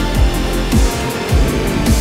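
Loud electronic dance music from a live set. A deep kick drum that drops in pitch hits a little under twice a second over a sustained bass line, with hi-hats ticking above. The bass thins out briefly about a second in.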